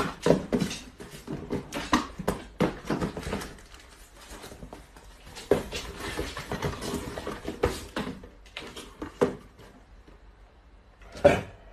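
Irregular knocks, scrapes and rustles of small cardboard boxes being handled and packed, with a quieter stretch near the end and then one loud knock.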